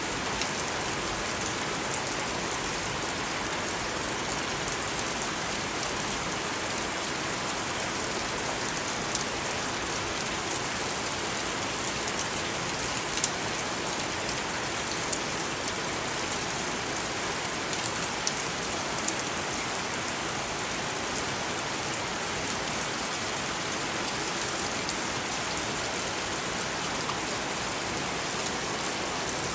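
Steady rain falling on a surface, with scattered louder drops pattering now and then.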